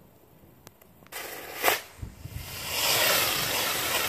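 A homemade saxon spinning-wheel firework with two drivers catches light. A sudden hiss starts about a second in, a brief louder burst follows, and from about halfway through the drivers give a loud, steady rushing hiss as the wheel spins throwing sparks.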